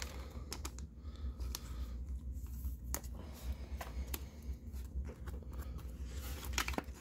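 Faint rustling and scattered light clicks of a Pokémon trading card being slid into a plastic card sleeve and handled, over a low steady hum.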